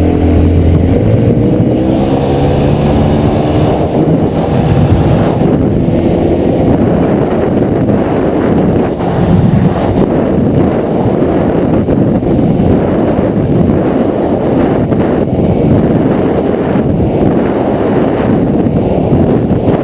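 Motorboat engine throttling up from idle, its pitch rising over the first couple of seconds, then running steadily under way with a dense rush of wind and water noise.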